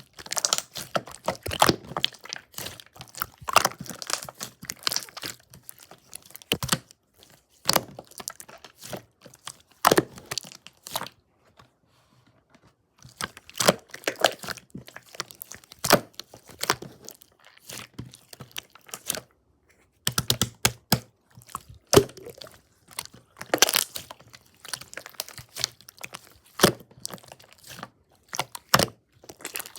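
Clear slime being squeezed, poked and stretched by hand, giving irregular clusters of crunchy crackling and clicking with short pauses between handfuls.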